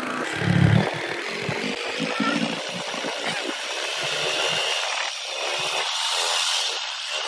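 Motor scooter's small engine running steadily on the move, with wind buffeting the microphone in irregular gusts.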